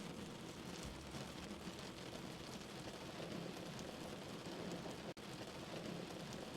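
Steady rain falling, an even hiss with no music, with a momentary break in the sound a little over five seconds in.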